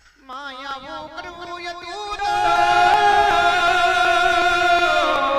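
Solo voice singing a long, drawn-out Gujarati folk melody line. The note wavers at first, then rises and gets louder about two seconds in, is held steadily, and steps down near the end.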